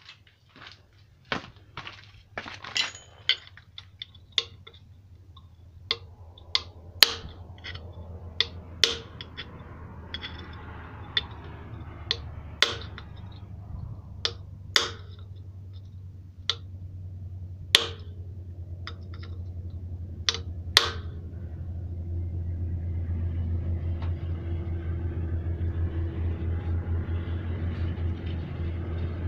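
A hammer striking metal at the flywheel of a Peugeot 504 diesel engine: about eighteen sharp, irregular blows over the first twenty seconds. After that, a low steady hum with a fast pulse builds up and grows louder toward the end.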